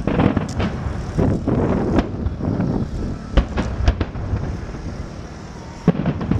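Fireworks display: several sharp bangs of bursting aerial shells at irregular intervals, the loudest about three and a half to four seconds in, over a steady rumble.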